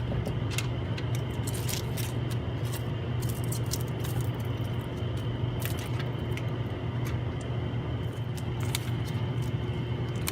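A steady low machine hum, with scattered light clicks and rattles of small parts and tools being handled.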